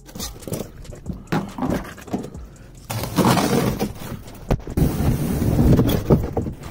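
A large cardboard box scraping and rubbing as it is pushed into a car's cabin against the seats and headliner, with irregular knocks and bumps. The scraping is loudest and most continuous in the second half.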